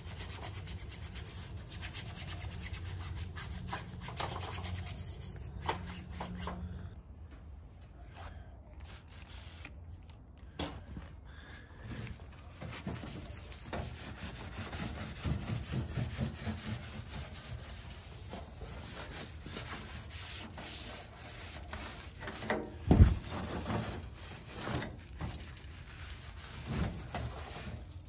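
Dry paintbrush bristles scrubbing dust off a portable gas heater's plastic mesh filter in rapid short strokes for the first several seconds. After that, a cloth rubs and wipes over the heater's metal casing, with one sharp loud knock about two-thirds of the way through.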